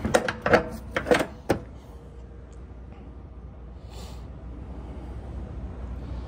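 Rear swing door of a dry-van semi-trailer being shut, with a quick run of metal clanks and knocks from the door and its lock-rod hardware in the first second and a half. After that a steady low rumble, with a brief hiss about four seconds in.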